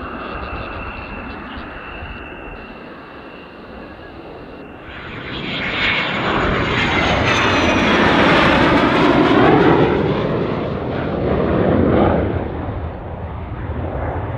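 F-16 fighter jet's engine. A steady distant jet roar builds about five seconds in as a jet passes low and close, with a high whine falling in pitch. It is loudest near the middle, then eases off near the end.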